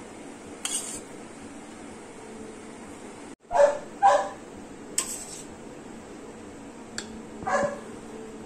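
A dog barks in the background: two short barks close together about halfway through, and one more near the end. A metal spoon clinks a few times against a glass tumbler of chia pudding.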